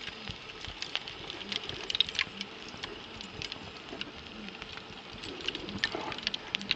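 Wood fire crackling: irregular small pops and snaps from a burning log over embers.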